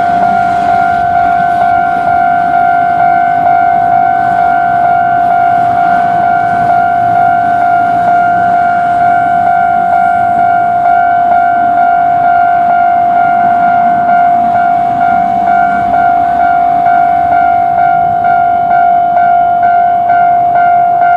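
Japanese level-crossing warning bell ringing its steady, repeating "kan-kan" electronic tone, the crossing signalling a train's approach, with a low rumble beneath it.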